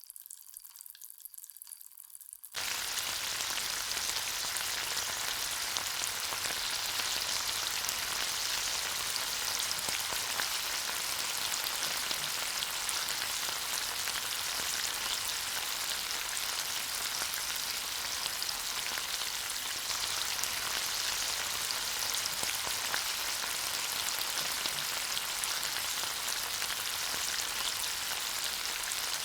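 Food frying in hot cooking oil in a miniature pan: a steady crackling sizzle that starts suddenly about two and a half seconds in and holds evenly.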